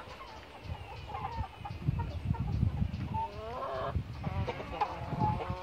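Chickens clucking, several short calls with one longer drawn-out call about three seconds in.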